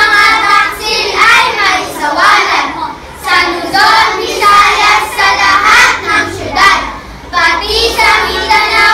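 A group of young girls reciting a Filipino poem together in unison, in short phrases with brief pauses between them.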